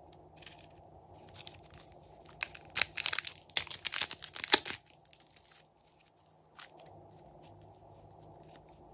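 Clear plastic bag crinkling and rustling in a burst of a few seconds in the middle as a lump of soft blue clay is handled and pulled out of it.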